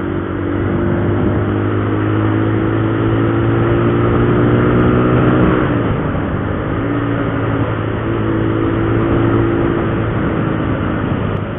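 Motorcycle engine running at road speed, its pitch climbing slowly for several seconds, dropping sharply at a gear change about six seconds in, then picking up again, with wind rushing over the microphone.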